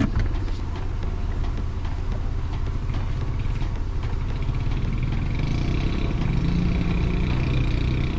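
Four-wheel-drive car engine running under load as it climbs in four-high. The engine note strengthens and rises about five seconds in.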